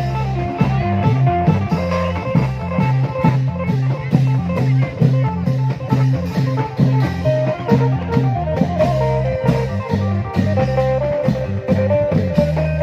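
Thai klong yao procession music: long drums beating a steady dance rhythm under a lively plucked electric string melody and bass line.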